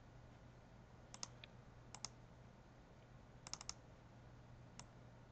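Faint computer mouse clicks, mostly in quick pairs like double-clicks, four groups spread over the few seconds, over a faint steady low hum.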